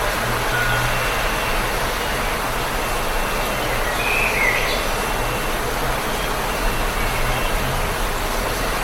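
Steady spring rain falling, an even hiss, with a few faint bird chirps and one clearer bird call about four seconds in.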